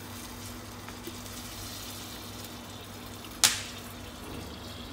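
Honey bubbling and sizzling softly as it is drizzled into a hot pan of popcorn on an induction hob, over a steady low hum. One sharp click comes about three and a half seconds in.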